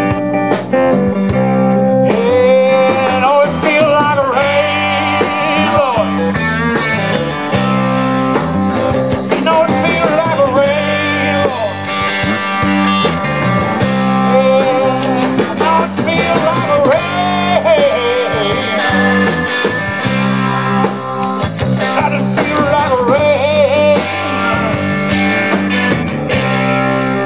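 Live blues-rock band playing an instrumental break: bass, drums and electric guitar, with a lead line of bending, wavering notes over a steady beat.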